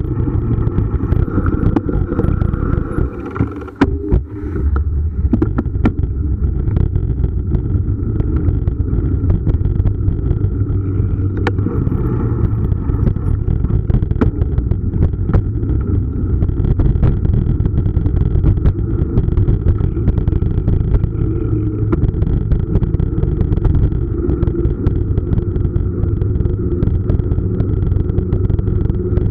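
Steady wind rumble on the microphone and mountain-bike tyres rolling on asphalt while riding, with scattered clicks and knocks from the bike over bumps. The noise drops briefly about four seconds in.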